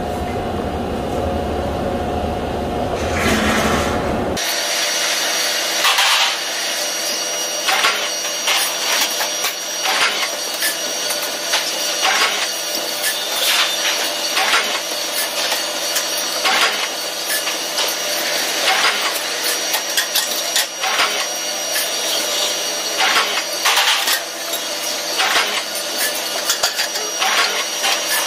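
Sheet-metal shop at a press brake: a steady machine hum with irregular scrapes and light metallic knocks as sheet metal is handled. A deep rumble cuts off abruptly about four seconds in.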